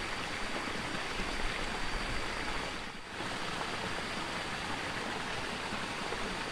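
Steady rush of running water in a shallow, muddy stream channel, dipping briefly about three seconds in.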